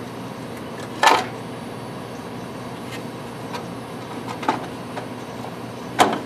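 Knocks and clatters of a tray being worked back into place inside a Leica cryostat's chamber: a sharp knock about a second in, a few lighter taps a little past the middle, and another sharp knock near the end, over a steady hum.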